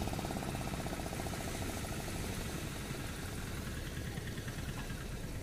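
A motor running at idle with a rapid, even pulse that fades away over the first two or three seconds, over the steady rush of breaking surf.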